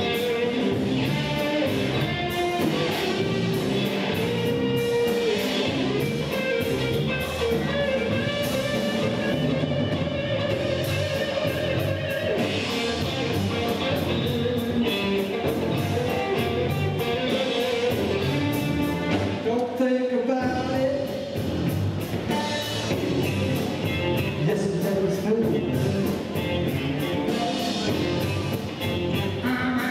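Live band playing an instrumental stretch: electric guitar playing lead lines over bass guitar and a drum kit. The bass and drums cut out for a moment about two-thirds of the way through.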